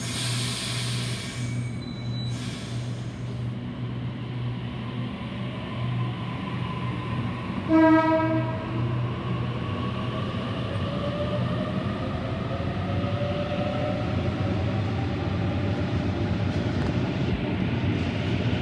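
Sydney Trains double-deck electric train moving off, with two short bursts of air hiss in the first few seconds. About eight seconds in comes one short horn toot, the loudest sound. After that a rising motor whine builds over a steady low hum as the train gathers speed.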